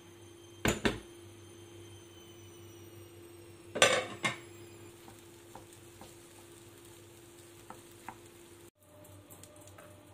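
Cookware clattering: two sharp knocks about a second in and a louder clatter of several knocks near four seconds, then light taps of a wooden spoon stirring thick curry in a pan. A faint steady hum runs underneath.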